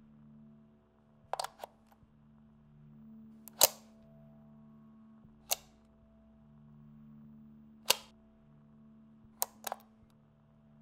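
Sharp clicks of switches and parts being handled on a spacecraft equipment panel, coming every two seconds or so, some in quick pairs or threes, the loudest about three and a half seconds in. Under them runs a steady low hum.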